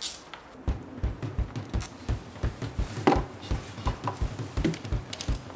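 Metal parts and tools handled as the cam cover comes off a Suzuki K6A three-cylinder engine: scattered light clicks and one louder metallic clank about three seconds in. Under them runs a regular low thump about three times a second.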